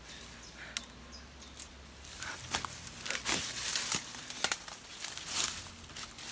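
Leaves rustling and twigs crackling as a person pushes through dense undergrowth. The crackles are sparse at first and grow busier and louder after about two seconds.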